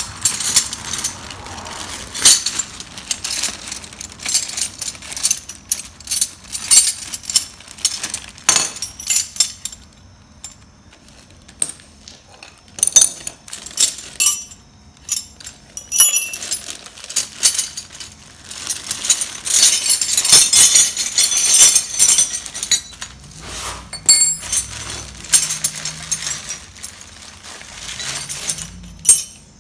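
Metal hand tools, wrenches and sockets, clinking and rattling against one another as they are rummaged through, in busy bursts with short pauses between.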